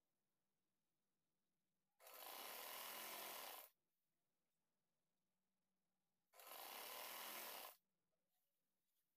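Sewing machine stitching a folded hem in two short runs of about a second and a half each, starting about two seconds in and again about six seconds in, with dead silence between.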